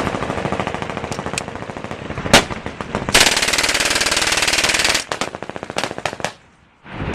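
Machine guns firing long fully automatic bursts, with a very fast burst from about three seconds in where the shots run together for nearly two seconds. Scattered shots follow, and the firing stops shortly before the end.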